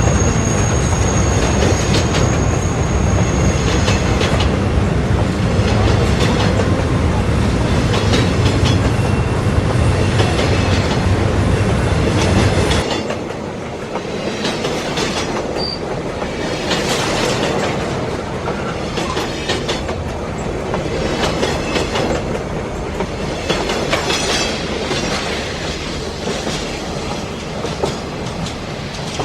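Train rolling on rails: a heavy low rumble with a thin high wheel squeal that stops about 4 seconds in. About 13 seconds in it gives way abruptly to a quieter, lighter run with the repeated clickety-clack of wheels over rail joints.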